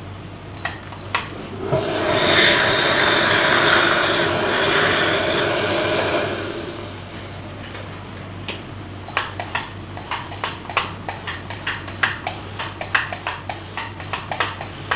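Dental surgical instruments during implant placement: a loud hissing whir for about four seconds, then a run of quick, small metallic clicks.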